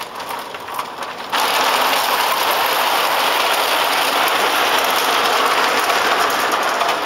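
Bing tinplate clockwork locomotive running on O-gauge track, its spring-driven gearing and wheels making a dense, steady rattling whirr. The sound cuts in suddenly about a second in.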